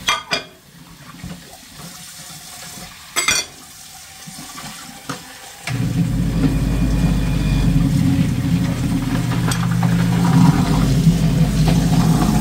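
Water running from a kitchen faucet into a stainless steel sink while plates are scrubbed with a sponge, with two sharp clinks of dishes in the first few seconds. About halfway through the water suddenly gets much louder, with a steady low drumming, and keeps on.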